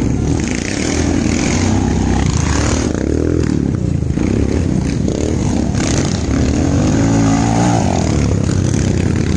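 Motorcycle engines running, revved up twice: the pitch climbs about three seconds in and again around seven seconds in.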